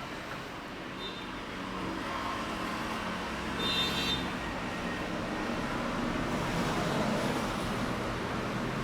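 Steady street traffic noise, with vehicles running and passing, and a brief high-pitched tone about four seconds in.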